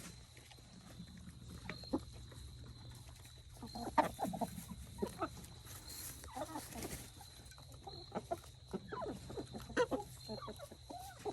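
Chickens clucking in short, scattered bursts, busiest about four, six and a half and nine to ten seconds in, over a steady low hum.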